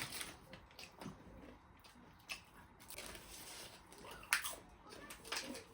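People biting and chewing takeaway food, with scattered short crunches and clicks; the sharpest click comes about four seconds in.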